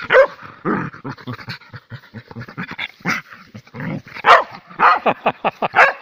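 Russian spaniel rolling on its back in the grass, giving a rapid run of short grunting, growling play noises, with several louder sharp barks among them.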